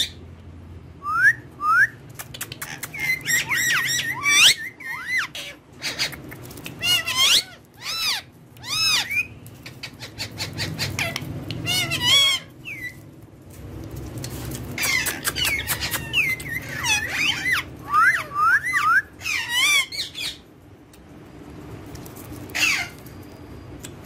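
Ringneck parrots calling: quick runs of high squawks, squeaks and rising and falling whistled chirps, with short pauses between runs.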